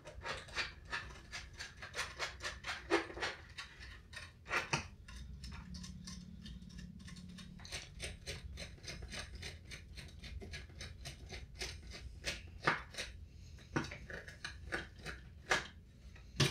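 Scattered small clicks and ticks of a precision screwdriver turning out the screws of a metal fan bracket mounted on a circuit board.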